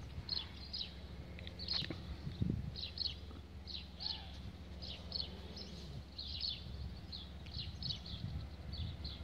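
Small birds chirping over and over, several short high chirps a second, above a low rumbling noise that swells a couple of times.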